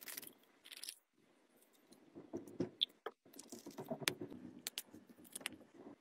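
Small plastic travel bottles being handled: two short spray-pump hisses in the first second, then scattered clicks and taps as the bottles are picked up and set into a toiletry case.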